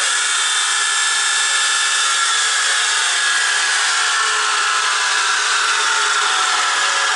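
DEWET tool-and-cutter grinder running with its drive motors on: a loud, steady machine noise with a few whining tones that slowly sink in pitch.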